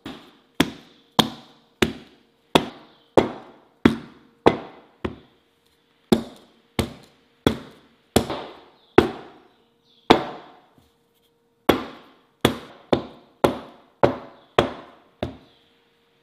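Batter-filled round metal cake pans knocked down on a countertop, about twenty sharp taps at roughly one every 0.6 s with two short pauses, each with a brief metallic ring. The knocks settle and level the batter and release trapped air bubbles before baking.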